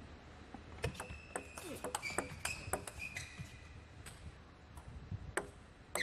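Celluloid-type table tennis ball knocking back and forth off rubber bats and the table in a quick rally, a dense run of sharp clicks with short ringing pings. Single ball strikes follow, one a little over five seconds in and another at the very end as the next point starts.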